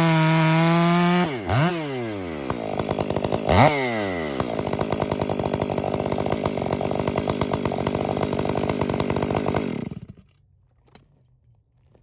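Stihl two-stroke chainsaw held at high revs with a steady high whine, then let off about a second in so the revs fall, blipped once more around three and a half seconds, and left idling with a rapid, even beat until it is switched off about ten seconds in.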